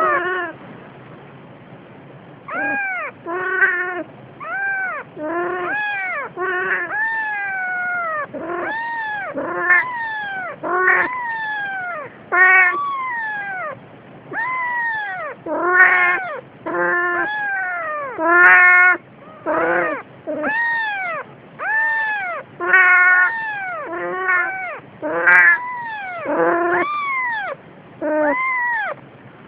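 Newborn kitten mewing over and over: short, high cries that rise and fall in pitch, about one to two a second, starting a couple of seconds in.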